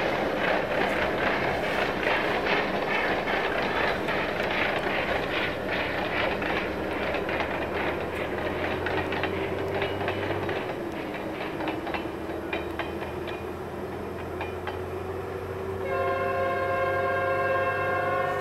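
A passenger train hauled by an SY-class steam locomotive rolls away, its wheels clicking over the rail joints and slowly fading. About two seconds before the end a long, steady horn-like tone starts and keeps sounding.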